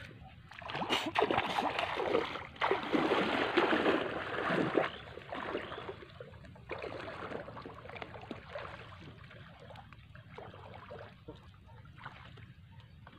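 Water sloshing and splashing as people wade waist-deep through a muddy pond, loudest in the first five seconds, then softer.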